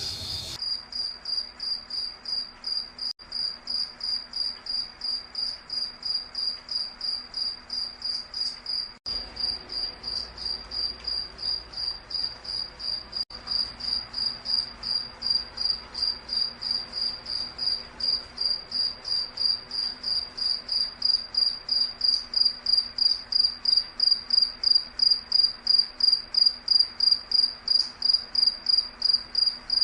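Night insect chirping steadily in a fast, even rhythm of about three high-pitched pulses a second, growing slightly louder in the second half.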